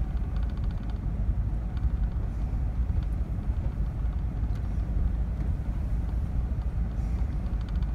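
Steady low rumble of engine and tyre noise inside a car's cabin as it drives slowly along a paved road.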